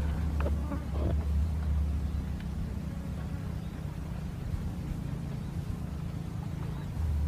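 A low, steady engine-like hum that fades after a couple of seconds and swells again near the end, with a few faint ticks.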